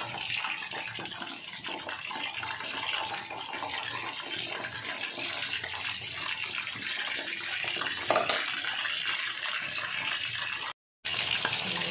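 Spiced chicken pieces deep-frying in hot oil: a steady sizzling crackle of bubbling oil, with one sharp click about eight seconds in and a brief cut-out near the end.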